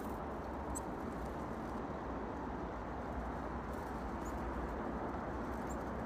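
Steady low outdoor rumble with a few short, faint, high chirps from black-capped chickadees.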